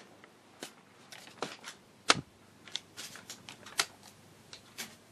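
Scattered light clicks and taps at an irregular pace, with a sharper click about two seconds in.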